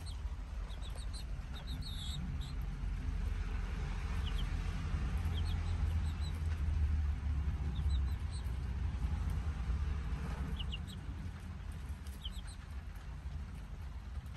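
Young chicks peeping: short, high chirps, singly and in little clusters, scattered through. Beneath them runs a steady low rumble, loudest in the middle.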